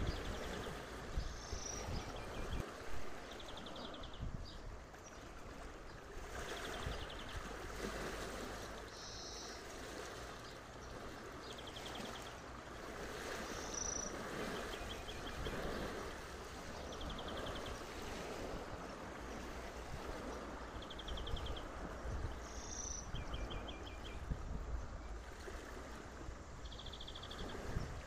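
Wind rumbling on the microphone by a lake shore, with small birds chirping in short, quick high trills every couple of seconds.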